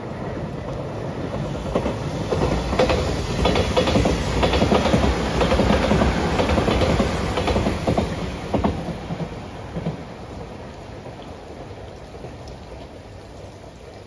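JR Shikoku 8000 series electric limited express, five cars, passing at speed: the rumble builds, and its wheels click rapidly over the rail joints for several seconds. It fades away about ten seconds in, leaving steady rain.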